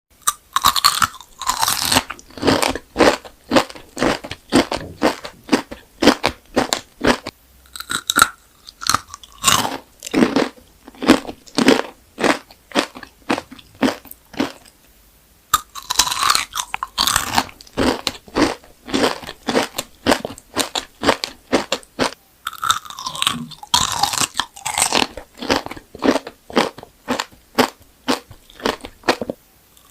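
Close-miked biting and crunchy chewing of gem-shaped candy, crunch after crunch several times a second, with a short pause about halfway through.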